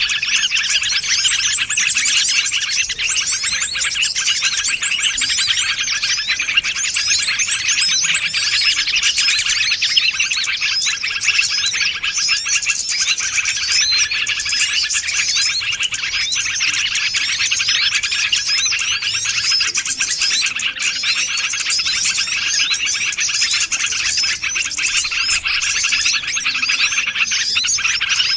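Bird-lure recording of many small birds chirping and twittering at once, a dense, unbroken chorus of quick high chirps at a steady level.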